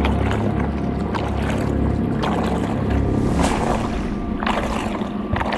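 Water churning and splashing around a radio-controlled scale tugboat, in surges, about three seconds in and twice more near the end, over steady background music.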